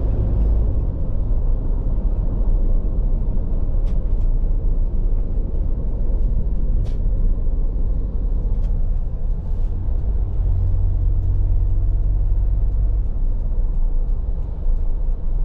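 Toyota Fortuner SUV driving, heard from inside the cabin: a steady low rumble of engine and road noise with a few faint clicks.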